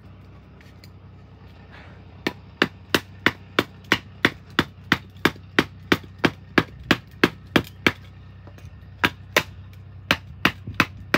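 A baton hammering on the tip of a Spyderco ceramic knife blade to drive it through a piece of wood: quick, even knocks, about three a second, with a short pause near the end before a few more. A steady low hum runs underneath.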